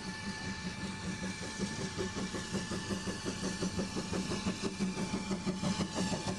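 Narrow-gauge steam locomotive of the Vale of Rheidol Railway chuffing, a regular run of exhaust beats about three or four a second that grows louder.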